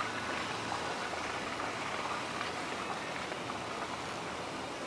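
Bicycle rolling along on pavement: a steady hiss of tyres on the ground with faint light crackles.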